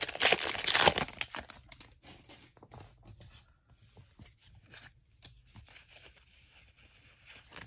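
Foil booster-pack wrapper of Pokémon trading cards crinkling and tearing open, loud for the first second and a half. After that, faint scattered ticks of the cards being slid out and handled.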